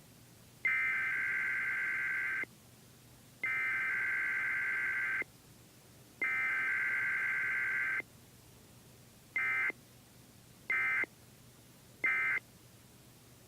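Emergency Alert System SAME data tones from a Required Weekly Test: three header bursts of about two seconds each, about a second apart, then three short end-of-message bursts.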